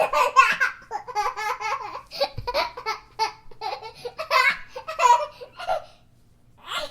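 Baby laughing in a long run of short giggles and belly laughs. The laughter stops near six seconds in, and another laugh starts just before the end.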